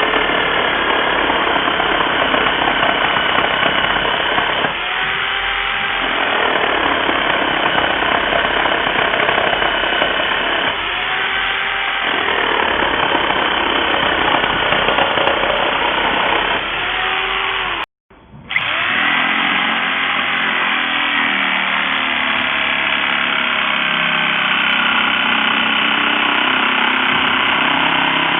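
Corded 950 W reciprocating saw running, its motor note dipping and recovering three times about six seconds apart. The sound cuts out for about half a second about two-thirds through, then the saw runs on.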